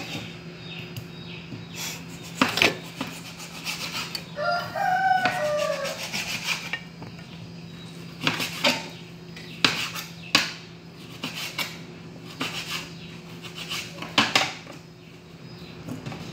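Kitchen knife chopping meat on a plastic cutting board, giving irregular sharp knocks. A rooster crows once about four seconds in.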